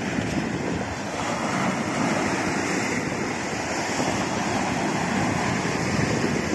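Rough sea waves breaking and washing over a rocky shore, a steady rush of surf, with wind buffeting the microphone.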